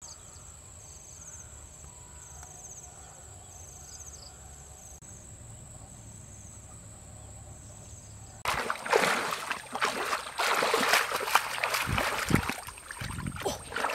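Insects buzzing with a steady high whine and evenly repeated chirps over quiet rural ambience. About eight and a half seconds in, loud irregular splashing and sloshing of shallow muddy water starts suddenly as a person wades and gropes through it by hand.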